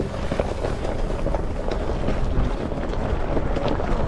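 Vehicle running over rough ground, with wind buffeting the microphone and scattered knocks and rattles.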